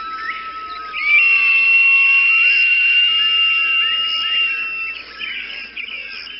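Closing soundtrack: a flute-like wind instrument holds one long high note over a lower sustained tone, with short chirps like birdsong around it. It fades out near the end.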